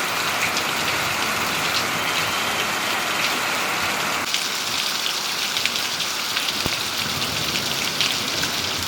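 Heavy rain pouring steadily and pattering on surfaces, with many distinct drop hits. The sound shifts to a brighter, more hissing tone about four seconds in, and there is a single sharp click a couple of seconds later.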